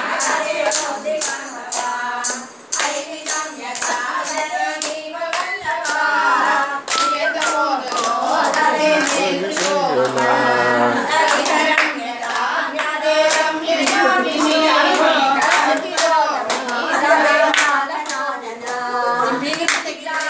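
A group of women singing a devotional song together, with steady rhythmic hand clapping in time with the song.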